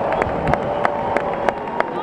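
Baseball stadium crowd: a steady din of many voices with scattered sharp claps.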